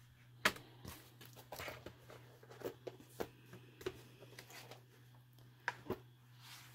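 Handling noise from a shadowbox frame being turned over on a table: scattered light knocks and taps of the frame and its backing board, the sharpest about half a second in.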